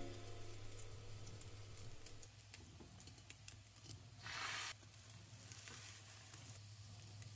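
Faint sounds of cooking a Japanese rolled omelette in a square pan: scattered light clicks and scrapes of chopsticks against the pan, and a brief sizzle a little after four seconds in as beaten egg is poured into the hot pan, over a low steady hum.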